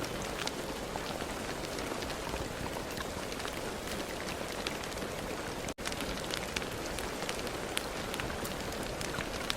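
Steady rain falling, an even hiss flecked with the ticks of individual drops. Just past halfway the sound cuts out for a split second.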